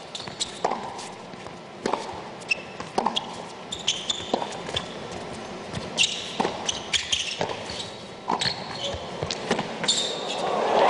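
Tennis rally on an indoor hard court: a string of sharp racket strikes and ball bounces with short high squeaks of shoes. Crowd cheering swells up near the end.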